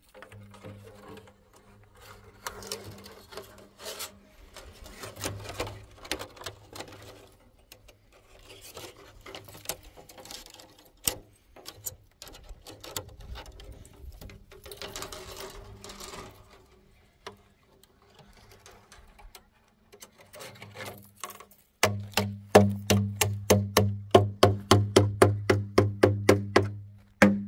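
Quiet, scattered scraping and handling sounds, then near the end a fast, even run of loud knocks, about six a second, over a low hum.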